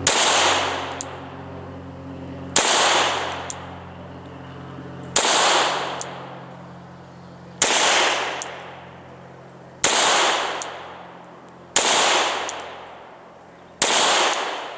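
Gen 4 Glock 19 9mm pistol firing seven slow, deliberate single shots about two seconds apart, each sharp crack trailing off in a long echo.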